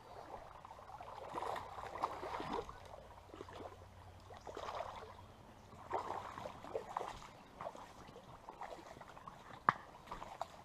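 Creek water splashing and sloshing in uneven swells, with a few sharp clicks.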